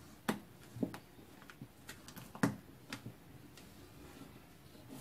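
Spatula tapping and scraping against the side of a bowl while stirring cake batter: a string of irregular sharp taps, the loudest about two and a half seconds in.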